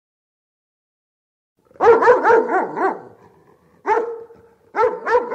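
A dog barking. After a short silence comes a quick run of about six barks, then a single bark, then two more near the end.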